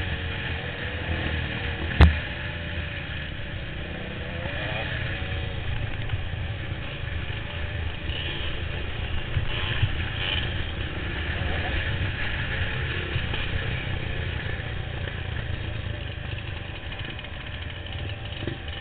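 Enduro motorcycle engines running unevenly, with one sharp knock about two seconds in.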